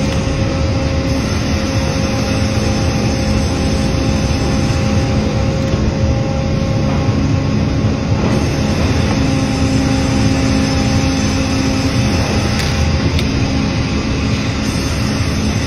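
Cleereman band sawmill headrig and log carriage running as it saws a white oak log: a loud, steady machine din with a constant hum.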